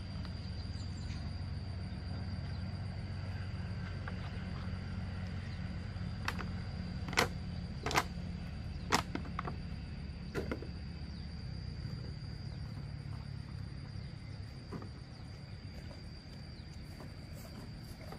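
A motor running steadily with a low, even hum, and a thin high whine throughout; five or six sharp knocks or clicks come in the middle.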